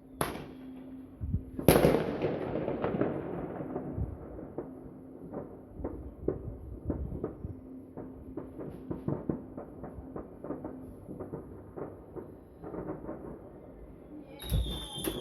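Fireworks going off: a sharp bang just after the start, then a louder boom a second and a half later with a long fading echo, followed by a steady scatter of crackling pops and another burst of bangs near the end.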